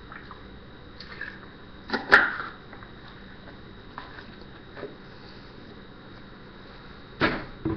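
A person with a mouthful of mouthwash breathing hard through the nose: a few short puffs a second or more apart, the loudest about two seconds in with a sharp click, and a pair near the end.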